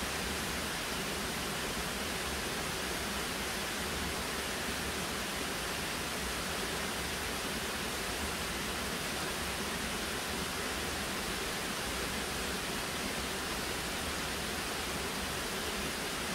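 Steady rushing hiss of falling water from a mountain cascade, even and unbroken.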